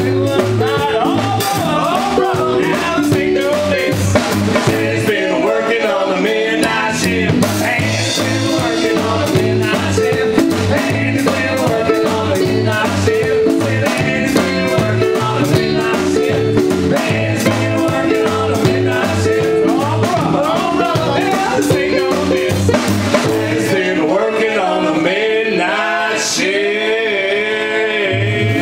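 A live band playing: upright double bass, strummed acoustic guitar and drum kit, with a man singing lead. The bass drops out for a few seconds near the end.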